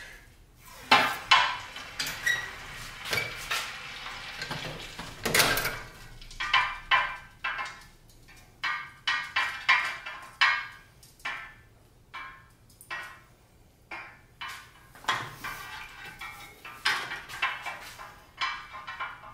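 Red-hot Damascus steel knife blade being quenched in a steel quench tank. A sizzling hiss in the first few seconds is broken up by clinks. After that comes an irregular run of sharp metallic clanks and knocks as the blade and tongs are worked up and down against the tank.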